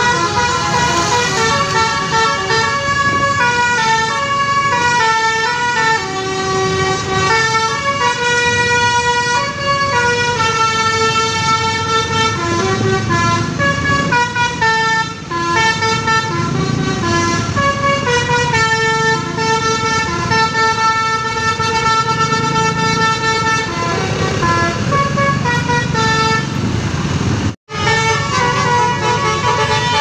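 A bus's Basuri telolet musical horn playing a long tune of stepped, held notes over a low rumble of traffic. The sound drops out for a moment near the end and then carries on.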